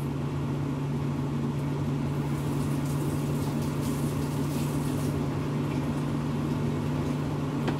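Water running from a kitchen tap as a stirring spoon is rinsed off, over a steady low mechanical hum.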